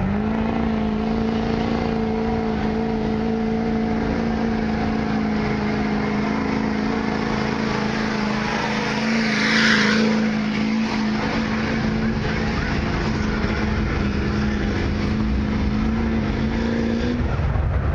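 Chevrolet Duramax diesel pickup engine under full load pulling a weighted sled: the revs climb at the start, then hold steady at one high pitch, and drop off near the end as the pull finishes. About halfway through a louder rush of noise comes as the truck passes close.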